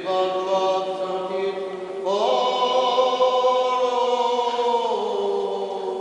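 Armenian church chant: a voice holds long sung notes over a low sustained note, stepping up to a higher held note about two seconds in and back down about five seconds in.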